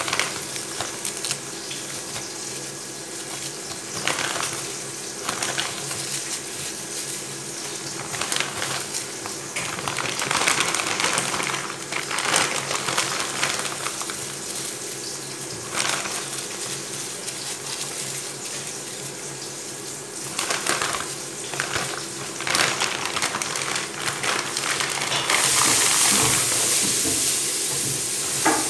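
Dried taro leaves being pulled out of a plastic bag and dropped into a pot: crinkling plastic and crackling dry leaves in irregular bursts.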